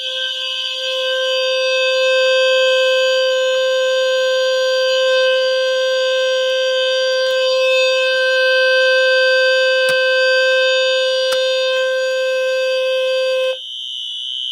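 Fire alarm horns sounding continuously and loud: the shrill tone of a Wheelock Exceeder and a Wheelock MT24-LSM horn over the low steady buzz of a System Sensor low-frequency sounder. The low sounder cuts off abruptly shortly before the end, leaving only the higher horns. There are two sharp clicks in the second half.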